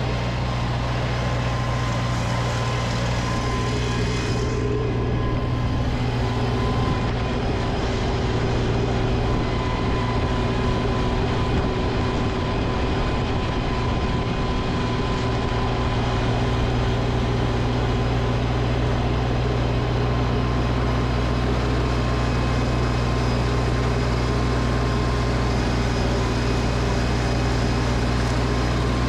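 Gasoline snowblower engine running steadily at a constant speed.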